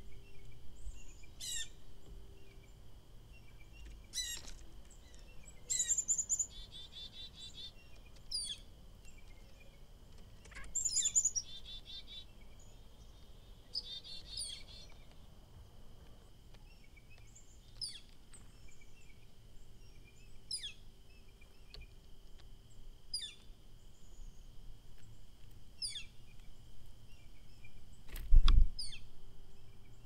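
Several wild songbirds calling: short, high notes sweeping downward, repeated every two or three seconds, with a few quick buzzy trills in the first half over a faint steady high hum. A single sharp thump comes near the end and is the loudest sound.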